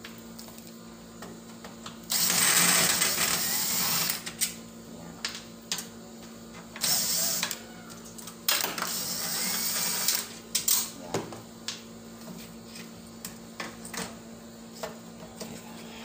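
Makita cordless drill-driver running in three short bursts (about two seconds, half a second, and a second and a half), backing screws out of a microwave oven's housing, with small clicks of handling in between.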